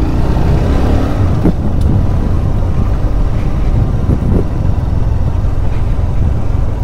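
Honda CBR motorcycle being ridden at steady speed, its engine running under a loud, steady rush of wind on the helmet-mounted camera.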